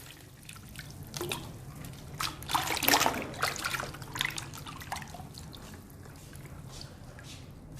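Water from a burst water balloon splashing and dripping in scattered, irregular spatters. They are thickest about two to three seconds in and thin out to a few drips near the end.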